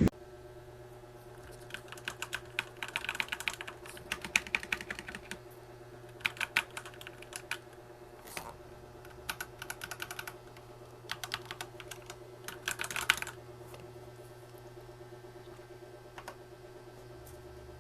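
Typing on a Rakk Daug 96-key mechanical keyboard with yellow switches: quick runs of key clacks in several bursts, stopping about three-quarters of the way through.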